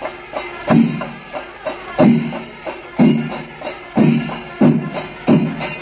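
Kerala temple percussion ensemble (chenda melam) playing: heavy chenda drum strokes about once a second with quicker lighter strokes between, over steadily clashing cymbals.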